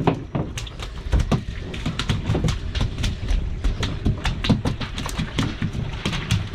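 Freshly landed banded rudderfish thrashing on the boat's deck, their bodies and tails slapping the deck in quick, irregular thumps, several a second.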